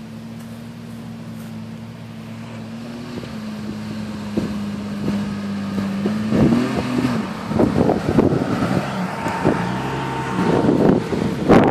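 Lifted Jeep Cherokee XJ crawling up a rough sandy trail, its engine running steadily and growing louder as it approaches, with a string of knocks and clatters as it works over the uneven ground, loudest near the end.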